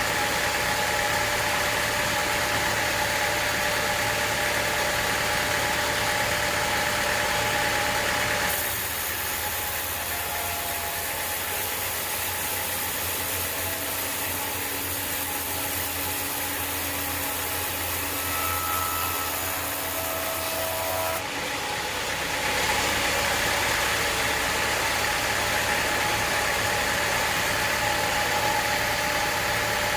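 Sawmill machinery running steadily, with a few steady tones in its sound. It changes abruptly about eight seconds in and changes back at about twenty-one seconds.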